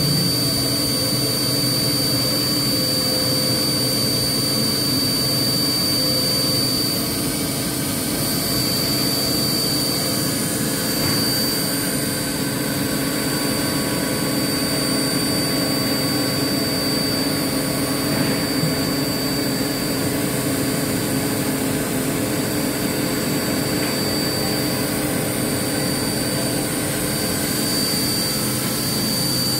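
4-axis CNC milling machine cutting a pattern into a metal roller with a small end mill under flood coolant: a steady high-pitched spindle whine over the machine's even running hum.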